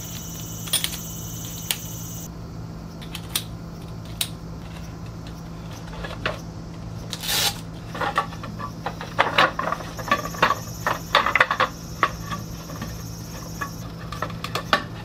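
Clicks, knocks and rattles of a slatted roll-up tabletop being lifted out of a folding wagon and unrolled across its top, with a brief sliding rush about halfway through and a quick run of clatter after it. A steady high insect-like trill sounds at the start and again near the end.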